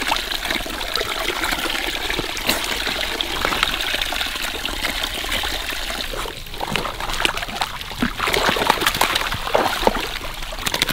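Water from a garden hose trickling and splashing into a shallow muddy pool, with piglets shifting and splashing in the water.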